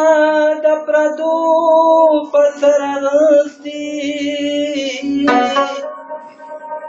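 A man singing long, wordless held notes in Pashto folk style, the notes wavering slightly, with a rabab playing along.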